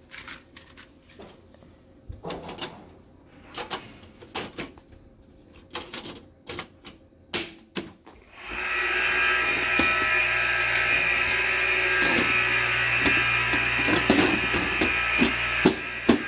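Plastic and metal clicks and knocks as an HP desktop case and its parts are handled. About eight seconds in, the computer is switched on and its cooling fans start up, running loud and steady with a whine, with a few knocks of the hand on the case near the end.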